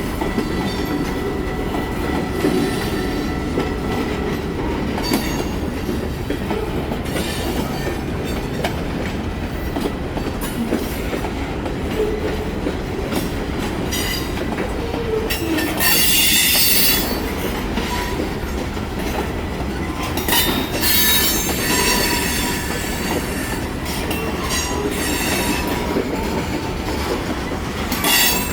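Freight train cars rolling past with a steady rumble and clatter of wheels on the rails. High-pitched wheel squeal comes in bursts, one just past the middle and a longer one a few seconds later.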